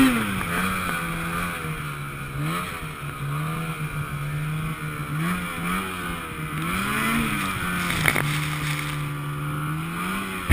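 Two-stroke E-TEC engine of a 2012 Ski-Doo snowmobile running under way through deep snow. The revs hold steady, then rise and fall several times as the throttle is worked. There is one sharp knock about eight seconds in.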